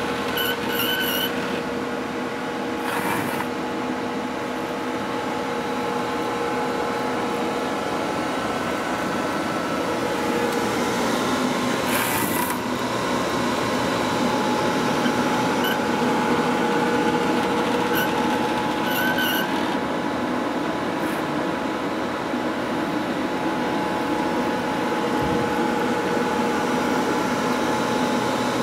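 Quantum Scalar i6000 tape library's robotic picker travelling and turning while it runs its inventory scan of drives, magazines and tapes: a steady machine hum with motor whine, broken several times by short squeaks and clicks.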